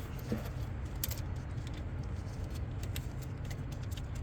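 A few light, sharp clicks of hand work on car parts during starter reinstallation, such as bolts, connectors or tools being handled, over a steady low rumble.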